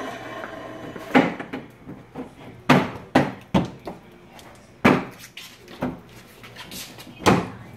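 A series of sharp knocks and thumps, about seven spread a second or so apart, as the 2010 Chevrolet Camaro's plastic rear bumper cover is pushed and tapped into place by hand.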